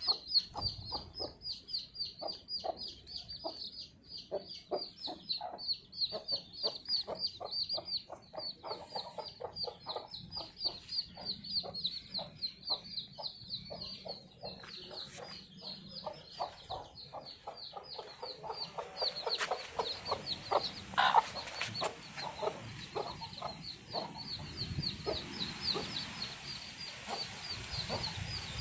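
Baby chicks peeping without pause, many short high-pitched peeps overlapping, with quick lower calls mixed in. A hiss rises in the background in the last third.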